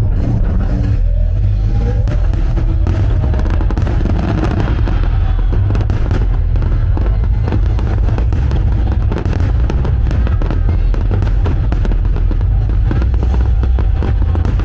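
Fireworks bursting overhead in a dense run of bangs and crackles, with music playing along.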